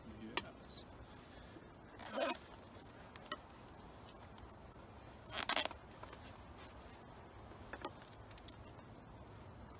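Strap buckles and clips on a soft motorcycle bag being handled: small metal clinks and ticks, with two louder short rasping pulls of strap or fabric, about two seconds in and again at about five and a half seconds.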